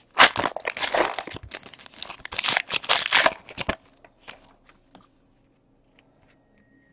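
Foil trading-card pack wrapper crinkling and crumpling in the hands for about four seconds, then a few faint ticks before it goes quiet.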